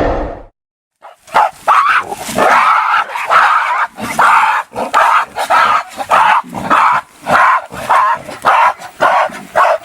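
Gorilla vocal effects: a loud roar ends about half a second in, then after a short gap comes a long run of short, sharp barking calls, about two or three a second.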